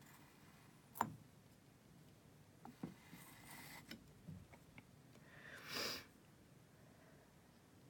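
Faint handling sounds of a metal palette knife on a painted canvas: one sharp tap about a second in, a few light clicks, and two short soft scrapes, the louder one near six seconds.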